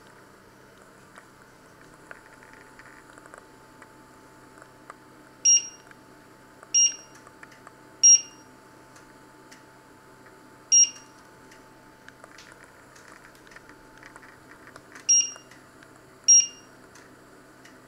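Electric hob's touch-control panel beeping as its buttons are pressed to set cooking levels and the timer: six short, high beeps at uneven intervals, one to four seconds apart.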